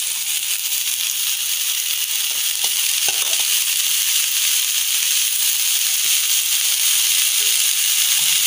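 Chopped purslane (gangavayala) leaves sizzling in hot oil with fried onions and green chillies in a kadai as they are added and stirred, a steady hiss that grows louder. A few light spatula scrapes against the pan are heard.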